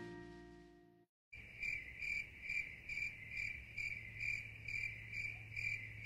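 Night insects chirping in a steady pulsing rhythm, a little over two pulses a second, over a low steady hum. They start about a second in, just after the last of a music chord fades out.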